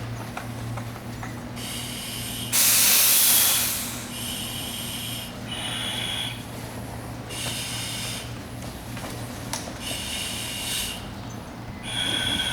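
SCBA face-piece regulators hissing with each breath of masked firefighters, in short bursts every one to two seconds. About three seconds in, a louder burst of rushing air lasts about a second.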